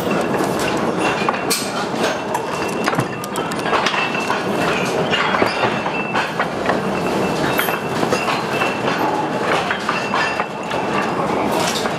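Steel mine tubs rolling along narrow-gauge rails: wheels clattering and knocking continuously, with metal clanks and a thin wheel squeal that comes and goes.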